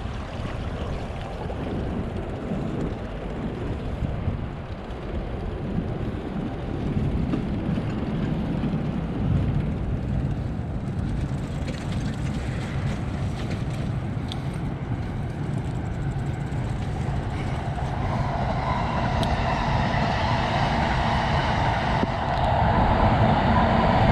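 Wind rumbling on the microphone over a low outdoor background. About three quarters of the way in, a vehicle's steady hum grows louder and stays up to the end.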